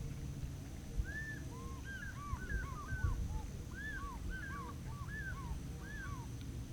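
Several birds calling together: a chatter of many short, arched calls that overlap one another. It starts about a second in and stops about six seconds in, over a steady low rumble.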